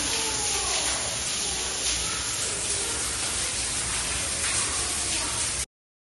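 Steady hissing background noise with faint, indistinct voices in it, cutting off suddenly near the end.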